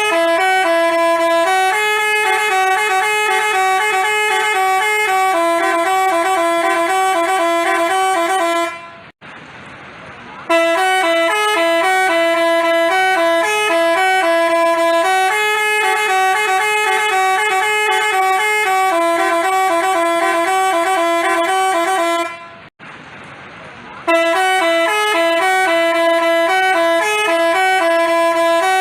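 Basuri telolet bus horn, a multi-tone horn playing a looping melody of quickly alternating notes. It breaks off twice for about a second and a half.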